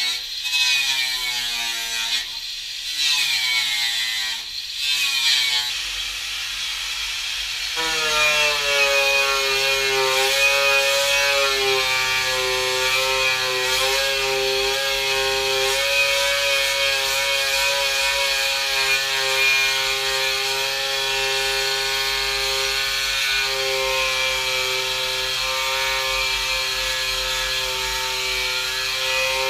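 Handheld electric power tool working on an aluminium boat hull. Its pitch rises and falls repeatedly over the first few seconds, then it runs steadily at one pitch from about eight seconds in.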